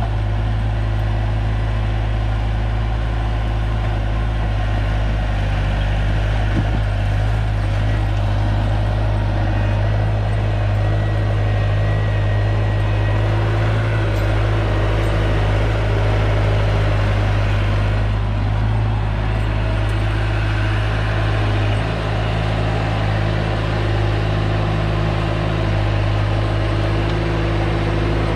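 Bobcat T250 compact track loader's diesel engine running steadily while the loader works asphalt millings. It is a continuous deep drone with a faint high whine above it.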